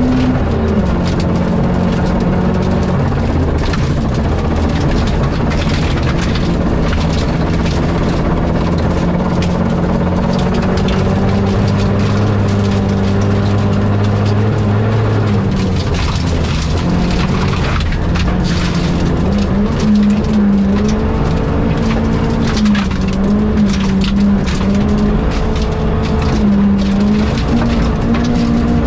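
Rally car engine running hard and continuously, its pitch dropping about a second in and then holding steady for long stretches. In the second half the pitch rises and falls repeatedly, over a noisy bed of tyre and road noise with scattered clicks and knocks.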